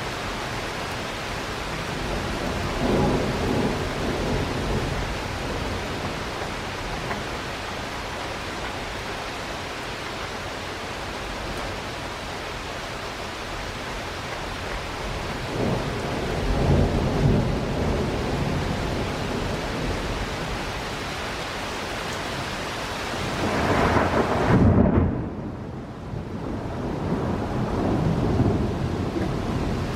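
Thunderstorm: steady rain with several rolls of thunder, the loudest about three-quarters of the way through.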